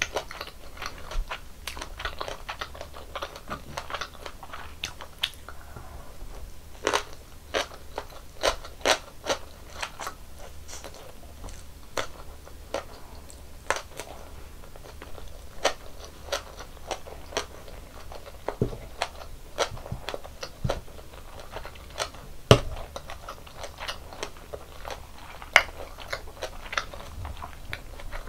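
A person chewing and biting Korean snack food, tteokbokki rice cakes and mini kimbap, close to the microphone. The chewing comes as many sharp, wet clicks at an irregular pace, with a few louder bites.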